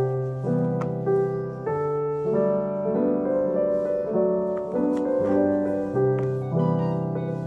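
Background piano music: slow, sustained notes and chords.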